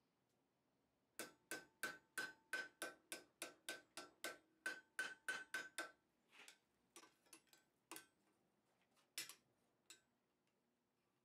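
Ball-peen hammer blows on hot steel bar held on an anvil, with a ringing note on each strike: a steady run of about sixteen blows at roughly three or four a second starting about a second in, then a few lighter, irregular taps and knocks.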